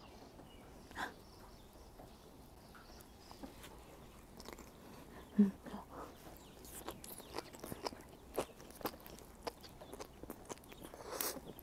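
Close-up biting and chewing of a perilla-leaf wrap of grilled hagfish with pickled radish and ginger: many small wet clicks and crunches, getting busier about seven seconds in, with one short, louder low sound about five seconds in.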